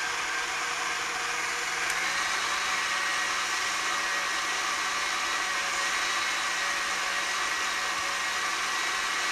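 Electric stand mixer running, beating egg yolks with sugar: a steady motor whine whose pitch steps up slightly about two seconds in.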